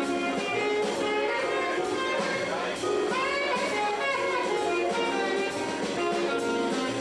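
Live jazz: a saxophone plays a melody over the band's accompaniment, with some notes bending and sliding in pitch about three seconds in.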